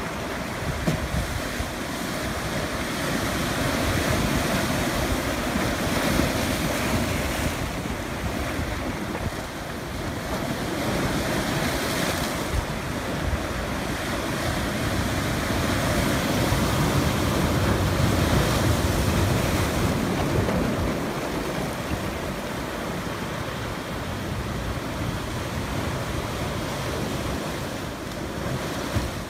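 Rough sea surf breaking and washing over shoreline rocks in a continuous rush, swelling and easing as the waves come in.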